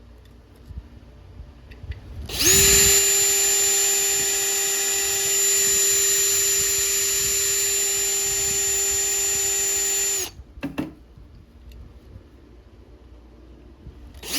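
Electric drill with a 5/32 metal bit drilling out the mushroomed rivet post on a 1/64-scale die-cast car. It spins up about two seconds in, runs at a steady, even whine for about eight seconds, then stops, with a brief blip just after.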